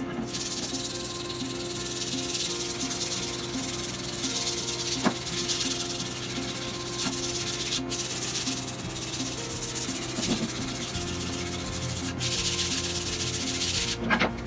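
Sanding: a steady scratchy rubbing hiss with short breaks about eight and twelve seconds in, over faint background music.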